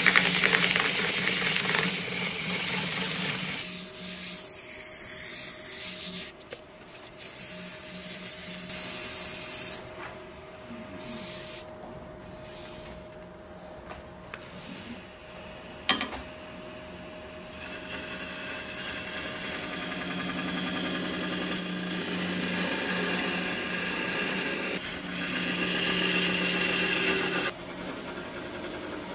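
Wood lathe running with a steady hum as the wooden vase spins. Abrasive paper hisses against the spinning wood in the first few seconds, and a turning tool cuts at the foot of the piece in the later part.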